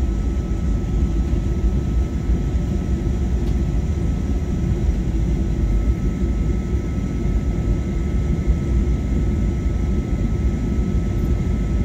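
Airliner cabin noise after landing, heard from inside the cabin: a steady low rumble from the engines and airflow, with two faint steady whining tones above it.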